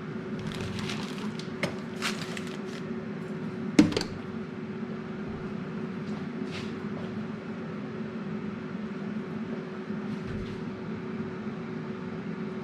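Air fryer running with a steady hum, with a few light clicks and one sharp knock about four seconds in as kitchen things are handled.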